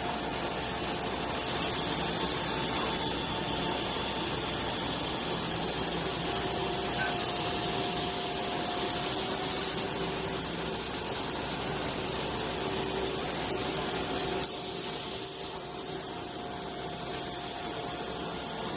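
CNC glass-processing machine running, a steady grinding, rubbing noise with faint steady tones over it; it drops a little in level about three quarters of the way through.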